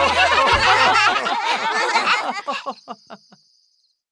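Several cartoon voices laughing together, the laughter thinning out into a few short separate 'ha's and stopping about three and a half seconds in.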